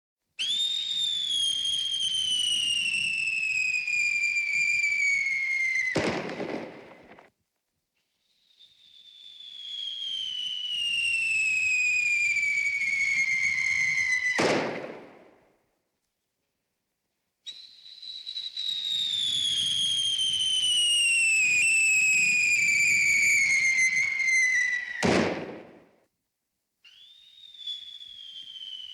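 Cartoon falling-whistle sound effects in the classic Looney Tunes fall style: three long whistles, each sliding slowly down in pitch and ending abruptly in a short thud of impact, with a fourth whistle starting near the end.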